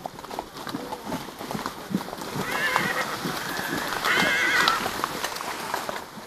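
Hooves of several horses going along a dirt track, a steady patter of knocks. A horse whinnies twice, a wavering high call about two and a half seconds in and again about four seconds in.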